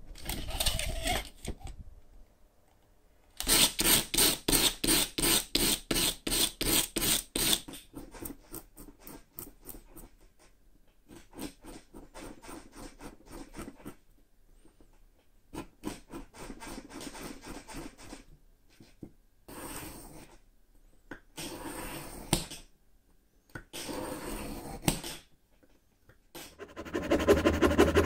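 Hand tools scraping and rubbing on wood: a run of loud, even strokes about four a second, then softer, broken scraping with pauses. Near the end, a thin-bladed hand saw cutting through a wooden block in quick steady strokes.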